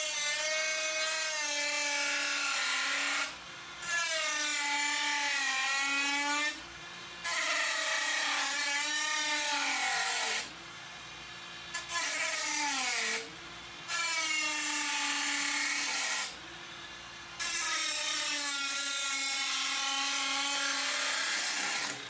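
High-speed handheld rotary tool cutting or grinding the case. Its whine sags and recovers in pitch as it is pressed into the work, and drops out briefly about five times before coming back.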